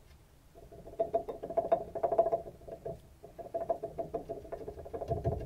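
An excessively worn upper ball joint on a 2006 Dodge Ram 1500 clunking as its loose stud is rocked back and forth by hand: a quick run of metallic knocks and clicks that pauses briefly about three seconds in. The clunking comes from the joint's excessive play; the joint is worn out and being replaced.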